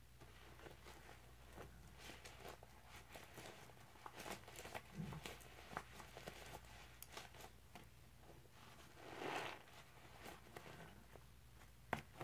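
Scrub Daddy sponges squeezed by rubber-gloved hands in a plastic bucket of foamy cleanser suds: faint squelching and crackling bubbles with scattered small clicks, and a sharp tap just before the end.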